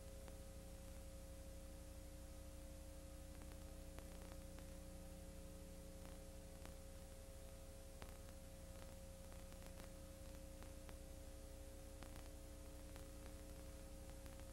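Near silence with a faint steady electrical hum carrying a few steady tones, and scattered faint clicks.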